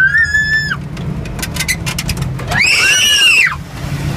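Two short, shrill, high-pitched whoops over the drone of a fire truck's engine in the cab. The first rises and holds briefly at the start; the second, just past the middle, rises and falls.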